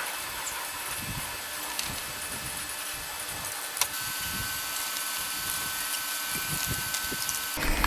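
Aerosol can of black spray paint hissing steadily as it is sprayed through a clip-on trigger handle, with a few faint knocks.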